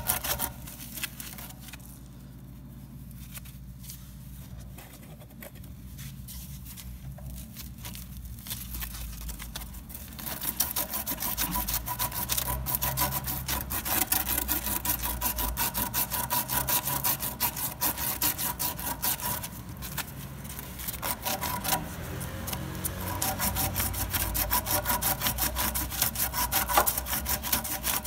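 Rapid back-and-forth rasping of a strip of abrasive cloth pulled around a copper refrigerator suction tube, scouring the tube clean for brazing. It is lighter at first and turns into steady, louder strokes about ten seconds in.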